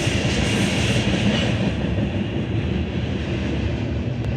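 Freight train passing close by: rail cars rolling over the track with a steady rumble, the higher hiss thinning out about two seconds in.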